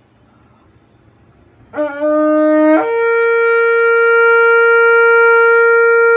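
Shofar blown: after a quiet start, a low note sounds for about a second, then breaks upward into a higher, bright note that is held steadily.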